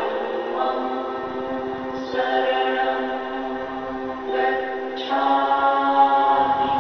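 Background choral music: voices sing long held notes, and new chords come in several times.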